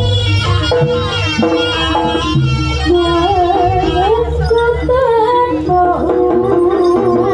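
Live jaranan music: a Javanese ensemble of hand drums and gongs playing loud and steady, with a high melody line that wavers and bends above the beat.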